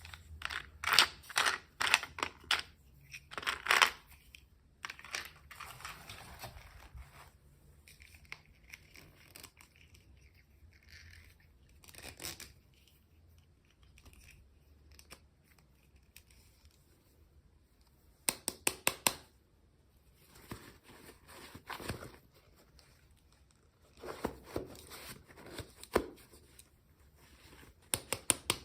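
Packaging being torn open and crinkled by hand, in several bursts of quick rips and rustles with quieter handling between.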